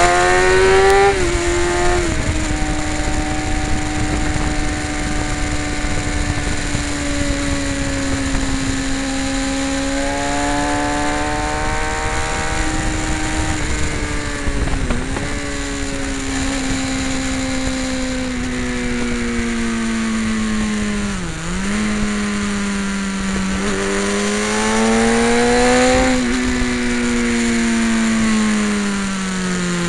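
Sport motorcycle engine running hard, heard from the bike's own onboard camera over steady wind rush. Its pitch steps down twice near the start, holds through a long stretch, dips sharply near the middle and again about two-thirds through as the throttle closes, then climbs and falls away near the end.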